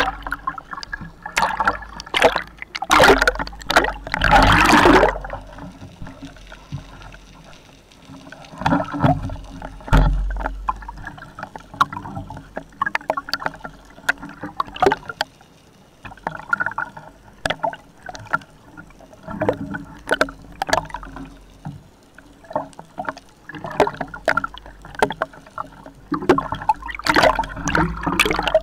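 Water splashing and bubbling against a camera at the sea surface, in uneven bursts every second or two, loudest about three to five seconds in.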